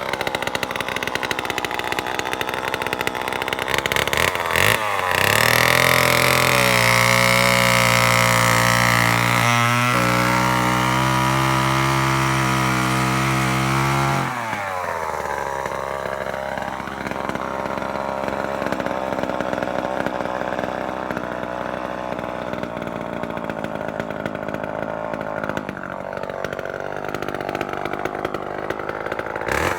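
Sears Sportster two-stroke chainsaw running. It is opened up to a high, steady rev about five seconds in and held there for roughly ten seconds, with a brief dip partway through. It then drops back to a lower, quieter idle, with a couple of short blips of the throttle.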